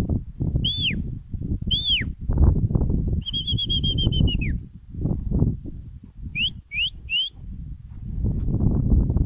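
A herder's whistling to drive a herd of hair goats: two falling whistles, then a long warbling whistle that drops at its end, then three short rising whistles, over steady shuffling and trampling through deep snow.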